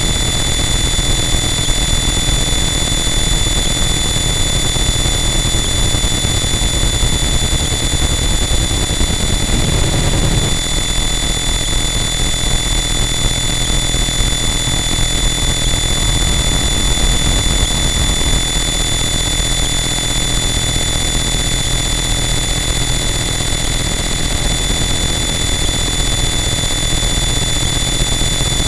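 Harsh noise wall: a loud, unchanging wall of dense distorted static with steady high whining tones through it, and a brief low surge about ten seconds in.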